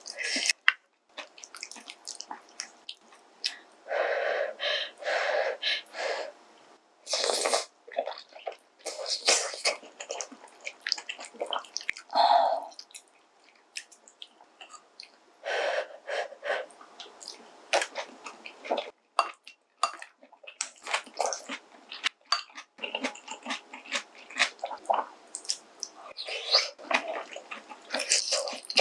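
Close-miked eating of soupy kimchi stew: wet chewing and slurping in irregular bursts, with short clicks of chopsticks or spoon against the bowl.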